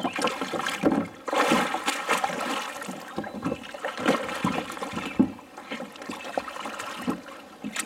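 Water splashing and sloshing irregularly as a swimmer kicks and hauls himself out of the river onto a sit-on-top kayak.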